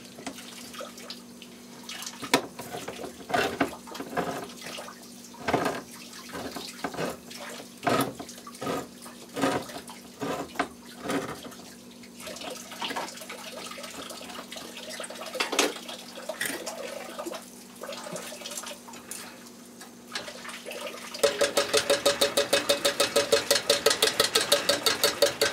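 A large can of baked beans being opened by hand: irregular clicks and metal knocks as the opener works around the rim. Near the end a loud, fast, even rattle, about nine beats a second, as the can is tipped over the pot.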